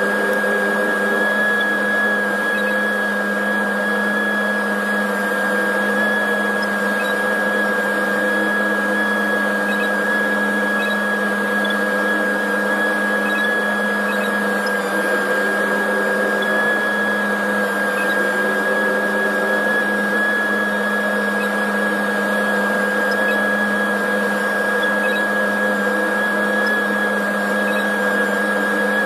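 Tractor engine and drivetrain running steadily under way, heard from inside the closed cab: an even drone with a steady high whine on top.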